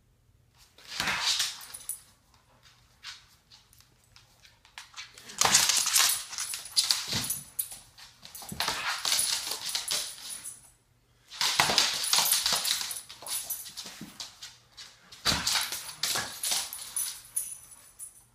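A puppy's play noises, whimpers and barks, in several bursts of a few seconds each with short quiet gaps between.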